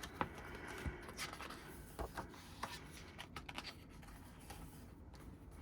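Faint paper rustling with scattered light taps and clicks: an album's printed inclusions, a lyrics book among them, being handled and turned over.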